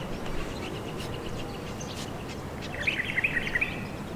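A bird gives a quick run of short, high chirps for about a second, starting a little under three seconds in, over a steady background of wind noise.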